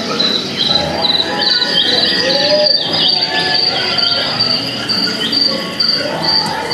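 Recorded cricket chirping from a dark ride's woodland soundtrack, played over loudspeakers: a steady run of high chirps, about two or three a second, over a bed of lower tones and short animal calls.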